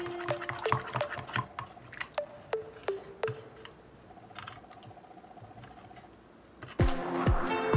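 Light drips and plinks into a clear plastic tub of water: about a dozen sharp clicks, each with a short falling tone, over the first three and a half seconds, then a faint steady hum. Background music with a beat comes back near the end.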